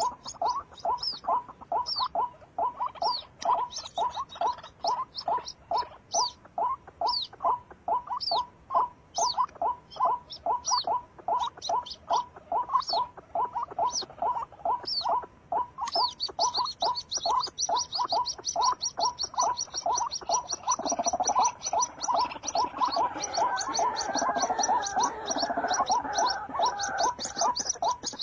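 Animal calls: a low call repeating steadily about three times a second, with high bird chirps over it. About halfway through the chirps become dense and continuous, and a rougher, louder call joins for a few seconds.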